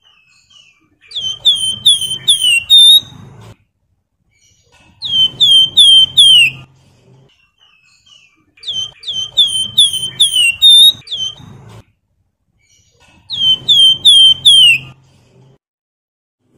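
Javan fulvetta (wergan Jawa) singing: four phrases of quick, repeated down-slurred whistles, each phrase five or six notes long, with short pauses between phrases.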